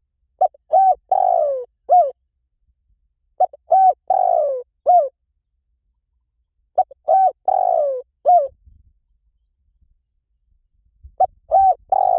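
Spotted dove cooing: three full phrases, each a few short hoots around a longer falling coo, about every three seconds, with a fourth phrase starting near the end.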